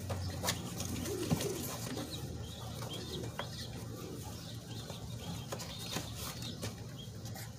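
Racing pigeons cooing, with scattered light clicks and knocks from a shipping box being handled.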